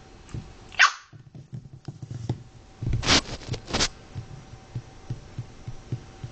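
Chinese Crested–Pekingese–fox terrier mix puppy giving three short high yips: the first, about a second in, falls in pitch, and the other two come close together around three to four seconds in. Faint light taps on the wooden floor come in between.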